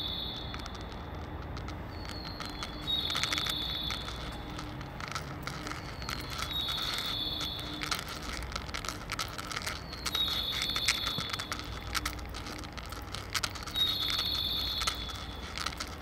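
Recorded birdsong played over a station loudspeaker: a short high chirping phrase that repeats about every four seconds. It is the kind of guidance sound Japanese stations use to mark stairs and escalators for visually impaired passengers.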